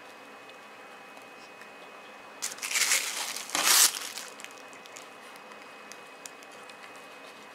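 Plastic packaging crinkling as it is handled, in two short bursts a little over a second apart, while frozen cut rice cakes are taken out.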